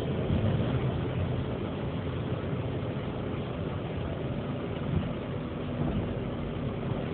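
Inside the cabin of a Volvo 850 R wagon, its turbocharged inline five-cylinder engine runs steadily at high speed, around 175–180 km/h, mixed with road and wind noise. A brief thump comes about five seconds in.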